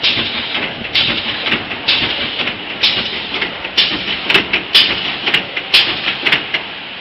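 Shrink-wrap packaging machine running: a steady mechanical clatter with a hissing, rattling burst about once a second, and sharper clicks coming faster in the second half. The clatter drops away shortly before the end.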